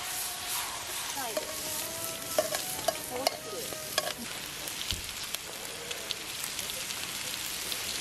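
Pork belly and minari sizzling in a frying pan over a wood fire, with a steady hiss of frying. Metal tongs stir and turn the meat, clicking and scraping against the pan, most often in the first half.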